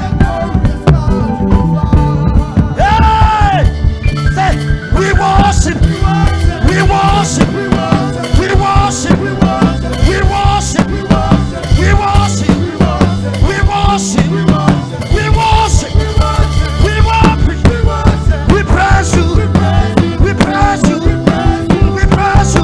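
Upbeat live worship music: a band with a steady, fast drum-kit beat and bass, with some singing.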